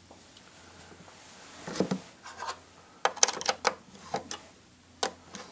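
Wooden Williamson Kinematograph camera's hinged side door being closed and latched by hand: wood-and-metal knocks about two seconds in, a quick run of clicks and rubbing around three to four seconds, and one more click near the end.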